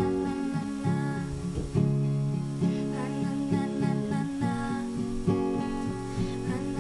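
Acoustic guitar being strummed and picked, chords ringing on between strokes.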